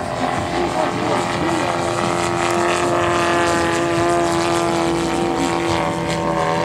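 Large-scale radio-controlled aerobatic airplane in flight, its gasoline engine and propeller running with a steady drone that grows a little louder towards the middle.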